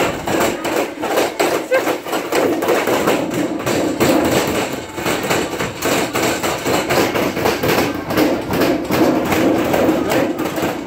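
Long metal rolling pipes rolling and knocking on a stainless-steel table as matzah dough is rolled out: a rapid, continuous clatter of knocks.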